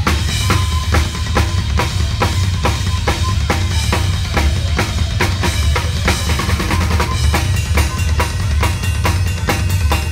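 PDP drum kit played hard: a dense, unbroken bass drum pattern from the two kick drums under regular snare and cymbal strokes, the cymbals ringing between hits.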